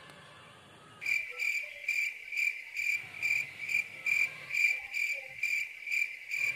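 Cricket chirping: an evenly repeated high chirp, about two to three pulses a second, that starts abruptly about a second in. It runs unchanged through a picture cut, so it is a dubbed-in cricket sound effect for an awkward silence.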